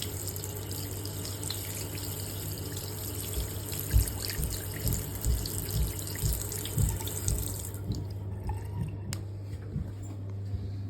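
A hot water tap running into a sink, a steady hiss that stops about three-quarters of the way through, over a steady low hum. It is the hot-water test of a Glow-Worm combi boiler just fitted with a new PCB.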